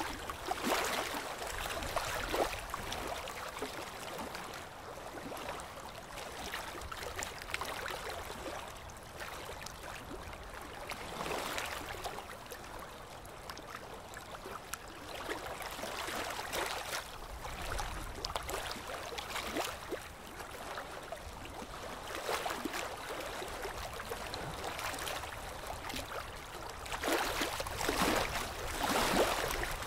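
Water sloshing and splashing in irregular surges every few seconds, loudest near the end.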